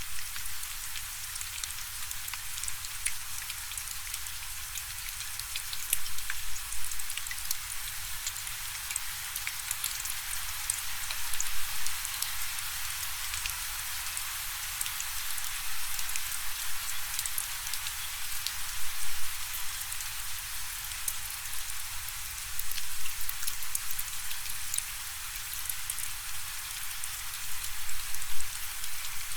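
Steady rain falling, a dense hiss of drops with many distinct drop ticks on a surface.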